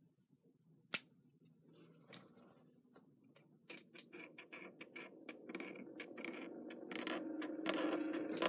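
Felt-tip marker scratching and tapping on paper in short strokes, heard as a run of quick dry ticks that thickens over the second half, with guitar music fading back in near the end.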